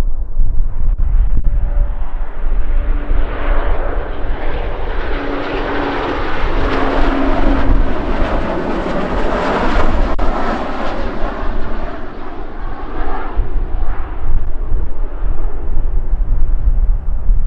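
Jet airliner passing close by, its engine noise swelling to a peak about halfway through and then fading away. A steady deep rumble of wind on the microphone runs underneath.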